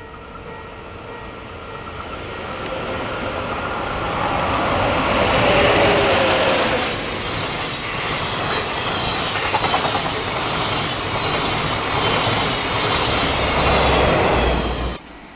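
The Twilight Express sleeper train, hauled by an EF81 electric locomotive, approaches and passes close by at speed. A rushing rail noise rises to loud over the first several seconds, then holds as the coaches go by with the clickety-clack of their wheels over the rail joints. The sound cuts off suddenly near the end.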